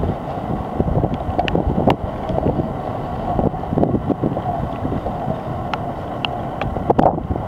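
Wind buffeting the camera microphone: a steady, rumbling rush with scattered short clicks and knocks.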